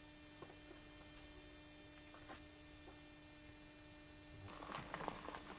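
Faint, steady electrical hum at one low pitch with a few faint ticks. About four and a half seconds in, footsteps crunching on gravel start up.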